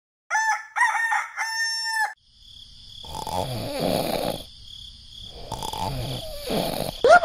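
A rooster crowing sound effect in three parts, ending on a long held note. Then two long cartoon snores follow, each with a steady whistle over it.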